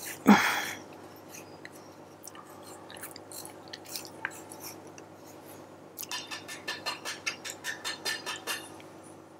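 Dark chocolate being grated with a hand-held stainless steel rasp grater: faint scattered scrapes, then from about six seconds in a quick run of rasping strokes, about four a second. A brief louder sound comes right at the start.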